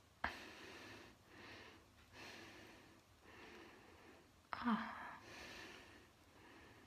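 A woman breathing hard through an open mouth while holding her swollen tongue out: about six rasping breaths, roughly one a second, the first starting sharply. About four and a half seconds in comes a short pained vocal sound falling in pitch.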